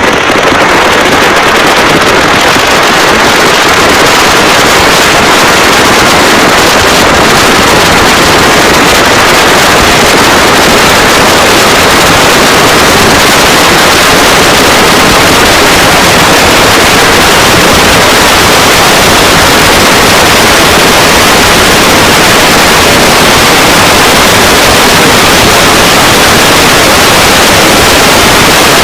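Very loud, heavily distorted, continuous static-like hiss: a small dog's growl amplified far past clipping, so that no growl tone is left, only steady crackling noise.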